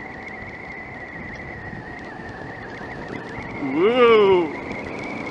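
Adventure motorcycle riding along a rough dirt track: steady riding noise with a thin, steady high whine. About four seconds in comes a brief loud sound that rises and then falls in pitch.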